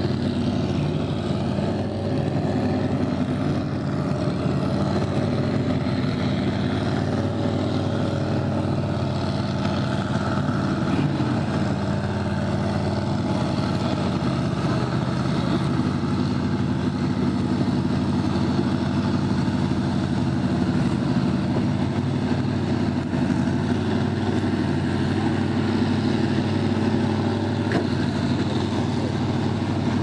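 Engine of a lifted Ford pickup on tractor tires, running steadily as the truck crawls through a water-filled mud pit. Its pitch rises and falls only a little.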